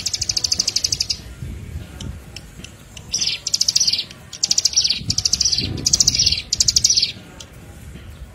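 Small songbird giving rapid, high trilled chirp phrases, each about a second long: one at the start, then five in quick succession from about three seconds in. This is recorded lure song of the kind used to attract and train songbirds, over a low background rumble.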